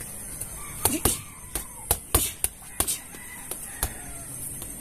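Gloved punches landing on a homemade hanging punching bag: about a dozen irregular thuds, densest in a quick flurry between one and three seconds in.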